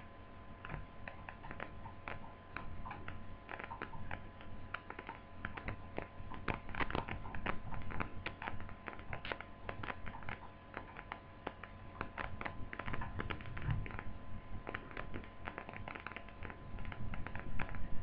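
Irregular small clicks and taps of plastic laptop parts being handled and fitted, as a retaining plate is put over new touchpad mouse buttons.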